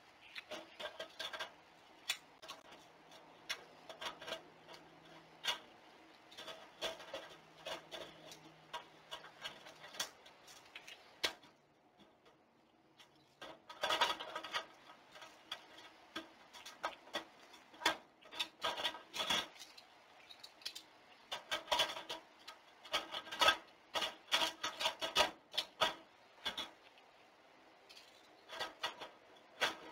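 Irregular scraping and scratching with sharp clicks, coming in clusters, with a short lull about eleven seconds in.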